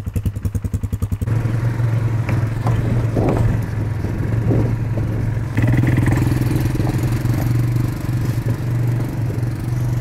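ATV engine idling with a quick, even pulse, then running as a steady hum that steps up louder about five and a half seconds in as the quads move off.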